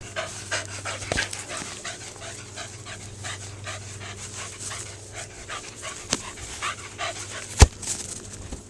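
A dog panting in quick, even breaths, about three a second, with a few sharp knocks, the loudest about three quarters of the way through.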